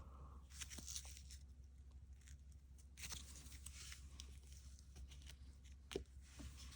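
Faint handling noise of silver coins and their plastic holders: soft rustling with a few light clicks, the sharpest near the end.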